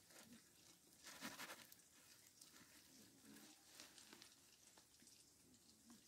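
Faint rustling and scraping of split cane strips being woven into a basket, with a louder scratchy rustle about a second in.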